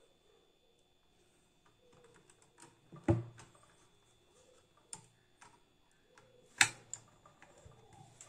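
Small clicks and taps of a screwdriver and wire ends against the terminal block of a generator changeover switch as wires are fastened into it, with two sharper knocks, about three seconds in and again three and a half seconds later.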